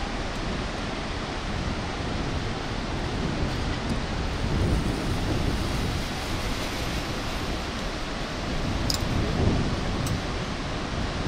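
Steady rushing noise of wind buffeting the microphone, over the roar of the Bhote Koshi river in the gorge below.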